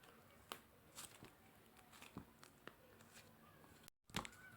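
Faint, scattered sticky clicks and pops of slime being pressed and stretched by hand, with a brief cut-out and a sharper click near the end.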